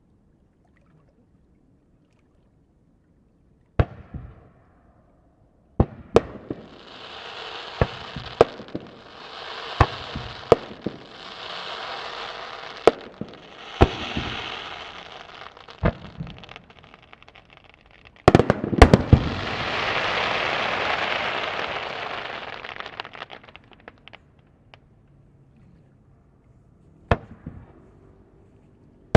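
Aerial fireworks bursting: a single boom, then a run of sharp booms one after another, each trailed by a hissing spread of sparks. Near the middle a loud double boom is followed by a long hiss lasting several seconds, and one more boom comes near the end.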